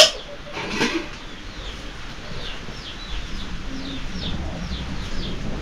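A sharp metal clank as an aluminium cooking pot is set down on the mud stove, with a smaller knock under a second later. Then a small bird chirps over and over, short falling notes about two or three a second.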